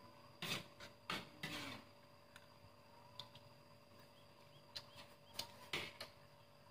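Spoons tapping and scraping on plates while eating, heard as scattered light clicks and a few short noisy scrapes or sips, with a faint steady hum underneath.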